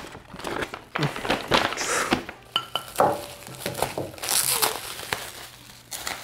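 Packing being unwrapped: kraft paper rustling and crumpling as it is pulled open, then scissors snipping tape and bubble wrap crinkling as it is pulled away, loudest about four seconds in.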